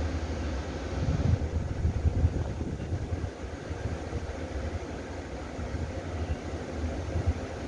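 Low rumble of a Taiwan Railway Tze-Chiang express train at the far end of the platform, with louder gusts of low rumbling from about a second in and again near the end.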